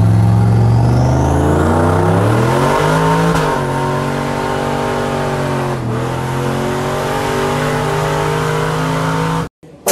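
Turbocharged GMC Sierra pickup engine heard from inside the cab under hard acceleration: the engine note climbs, drops at an upshift about three and a half seconds in, climbs again with another shift near six seconds, then holds steady before cutting off just before the end. A faint high whistle rises in pitch over the first two seconds.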